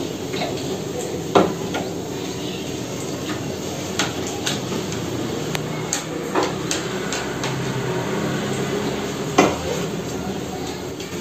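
Bottles and toiletries being picked up and set back down on a wooden shelf during dusting, giving a scatter of sharp knocks and clinks over a steady low background noise.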